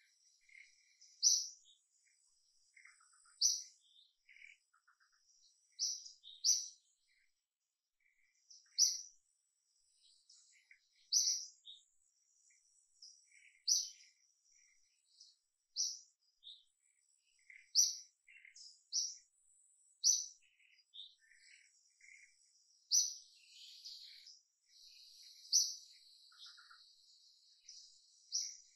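Forest birds calling: one bird repeats a short, high chirp about every two to three seconds, with softer calls from other birds between and a faint steady high insect whine.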